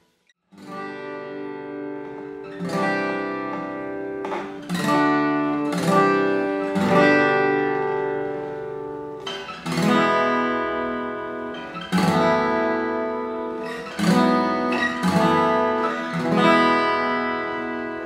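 Taylor 314ce 50th Anniversary steel-string acoustic guitar played by hand, its chords picked and strummed. The playing starts after a brief silence about half a second in, and each struck chord rings on and fades before the next, every second or two.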